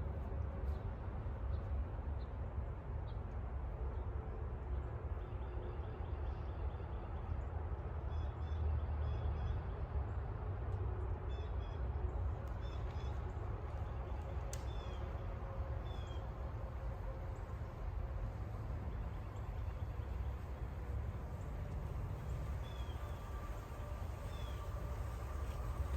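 Outdoor ambience: a steady low rumble with faint bird chirps scattered through it.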